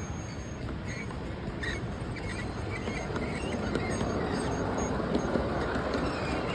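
Large-scale model freight cars rolling along the track, a steady rolling rumble that grows a little louder from about three seconds in.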